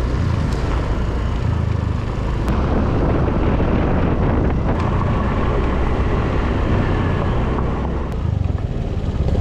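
Steady wind rush over the microphone of a moving motor scooter, with the scooter's small engine running underneath.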